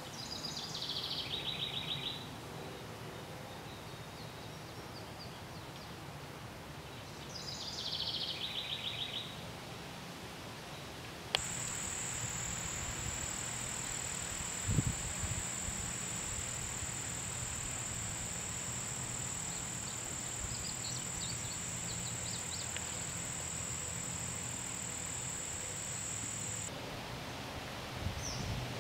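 A songbird sings twice, each time a short descending phrase that ends in a trill. Then a steady high-pitched insect buzz begins suddenly and runs for about fifteen seconds with faint bird chirps over it, before cutting off.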